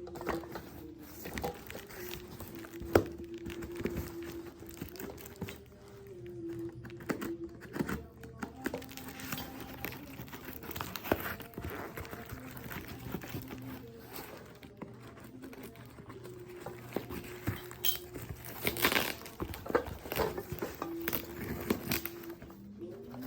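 Background music with sustained melody notes, over irregular crinkling and rustling of packaging being handled and torn open during unboxing.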